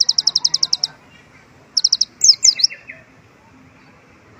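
A kolibri ninja sunbird singing high and loud: a fast run of about ten sharp notes, then after a short pause a brief run and a few quick downward-slurred notes. Its song is filled with mimicked white-eye (pleci) phrases.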